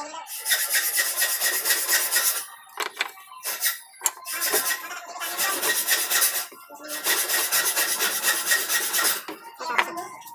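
A hand tool rasping across wooden quarter-round molding as it is trimmed by hand. There are several long strokes of a second or two, with shorter strokes between them.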